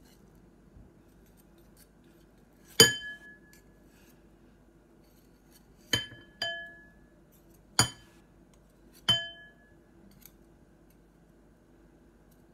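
Metal balloon whisk tapped against a mixing bowl to knock off thick flour-and-egg paste stuck in its wires: five sharp clinks, each ringing briefly, the first the loudest.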